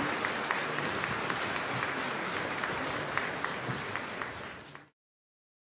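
Theatre audience applauding a ballet, a dense patter of many hands clapping. It thins a little and then cuts off abruptly near the end.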